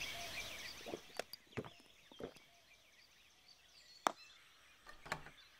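Light birdsong in a forest ambience fades out within the first second. It is followed by a few sparse, light knocks and clicks, the sharpest about four seconds in.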